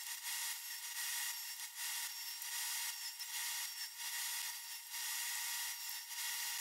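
Table saw running and cutting through a wooden board, sawing noise that swells and eases as short blocks are crosscut off one after another.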